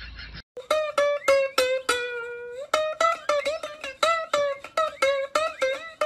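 Music of a plucked string instrument playing a quick, bouncy melody of short notes, some bending in pitch. It starts about half a second in, after a brief stretch of unrelated sound that cuts off suddenly.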